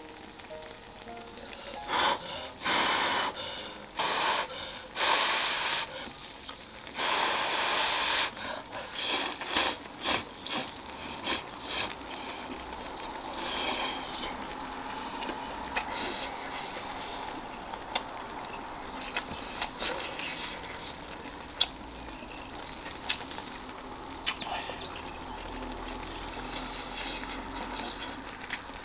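Someone slurping hot ramen noodles in several loud bursts in the first half, sucking in air to cool them. Then the broth simmering with a soft steady hiss, with a few short high chirps of birds.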